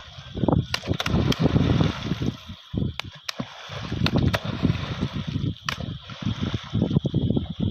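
Lake water sloshing and splashing in irregular surges, with scattered sharp knocks and clicks.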